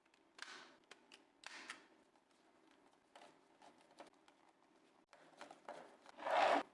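Small plastic clicks and several short scraping rubs from a PS4 controller being handled and worked on, the loudest scrape near the end.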